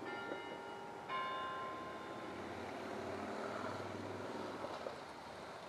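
A bell tolling: a strike about a second in, its tones ringing on and slowly fading.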